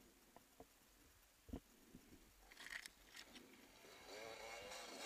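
Near silence: a bicycle on a dirt trail gives a few faint clicks and some crunching. About four seconds in a faint call starts, its pitch wavering.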